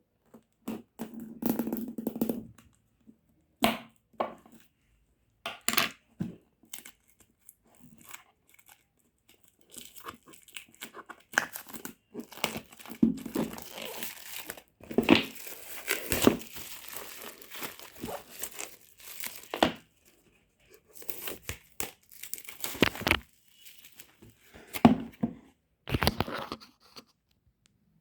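Packaging being torn open and crinkled during unboxing: irregular rips and rustles with short pauses, busiest in the middle.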